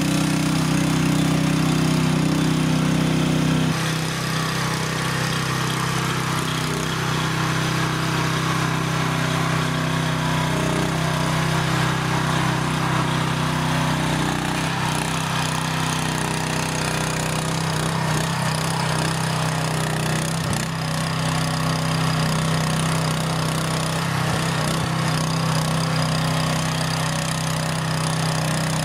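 Small engine of a Jansen RD-500 tracked mini dumper running steadily while the fully loaded machine works on a steep slope. Its level drops slightly about four seconds in.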